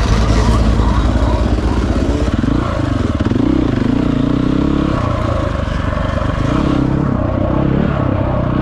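Dirt bike engine running under way, its pitch rising and falling several times as the throttle is worked.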